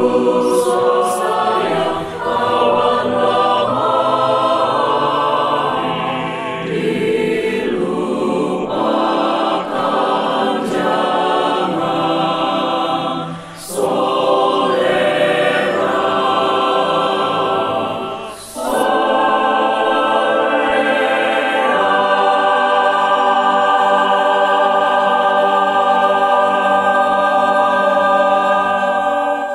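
Mixed church choir singing a sacred song in harmony, with two brief breaks between phrases, closing on a long held chord that cuts off at the end.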